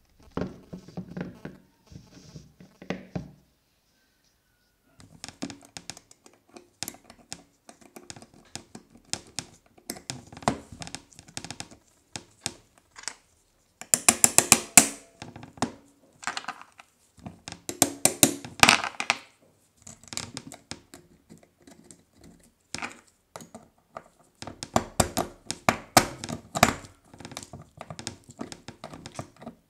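Hands reassembling a pair of metal pneumatic pruning shears: uneven runs of clicks, taps and light scrapes of metal parts as the threaded end cap goes on, the blade mechanism is worked and a screw is driven, with short pauses between runs.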